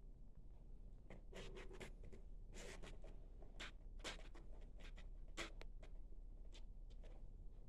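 Faint, irregular scratching and rustling, about a dozen short scrapes and clicks at uneven intervals.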